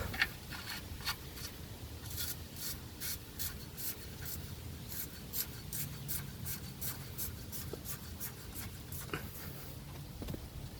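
Hand ratchet wrench clicking in a steady run of strokes, about three clicks a second, as nuts are run onto the bolts of the rear differential bushings.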